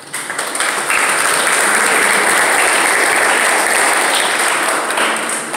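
Audience applauding: the clapping starts, swells to full strength within about a second, holds, and dies away near the end.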